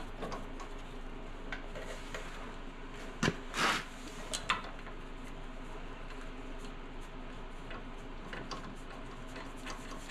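Small metallic clicks and clinks of nuts being spun by hand onto a sway bar link's threaded studs, with a few louder clanks of metal on metal about three and a half seconds in, over a steady low hum.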